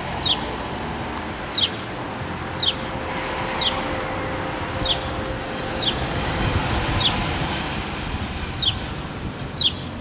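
House sparrow chirping: a short, falling cheep repeated about once a second, nine times, over a low rumble of street traffic.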